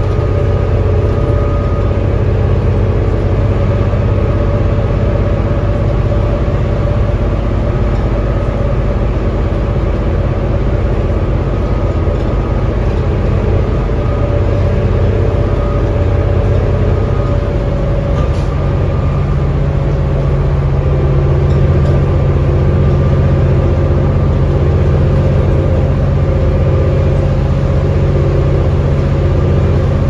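Interior sound of a 2007 New Flyer D40LFR transit bus under way: its Cummins ISL inline-six diesel and Allison B400R automatic transmission running with a steady drone. The engine note shifts upward about two-thirds of the way through.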